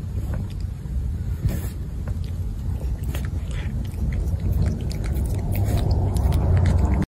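A cat licking and smacking at paste treat squeezed from a tube: a run of small, quick wet clicks, over a steady low rumble.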